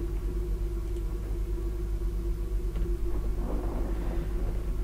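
Steady low electrical hum with a constant droning tone, with a single faint click about halfway through.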